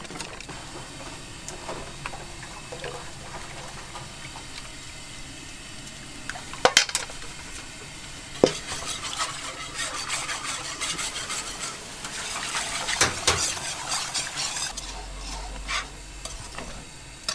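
A wire whisk stirring thin batter against metal, first in a stainless-steel mixing bowl and then in a frying pan on a gas burner, its wires scraping and clinking on the sides. Two sharp metal clanks come about 7 and 8.5 seconds in, and the whisking is busiest from about 9 to 14 seconds.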